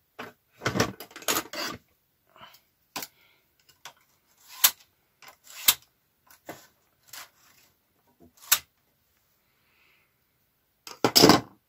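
Needles on a Singer 360 knitting machine's metal needle bed being pushed back into place by hand: irregular sharp metallic clicks and clatter, with a louder clatter near the end.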